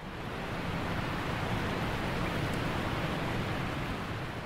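Steady rushing of falling water, fading in at the start and easing off near the end.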